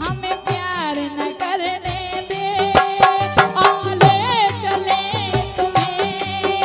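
Bundeli Rai folk music: a woman singing through a microphone over held instrumental tones, drum strokes and rattling percussion.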